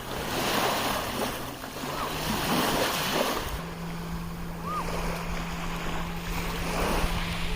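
Sea surf: waves breaking and washing up the shore in slow swells that rise and fall every few seconds. A steady low hum runs underneath and shifts slightly higher about three and a half seconds in.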